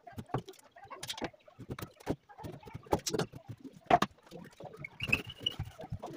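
Irregular light knocks and clicks, with a brief high squeak about five seconds in.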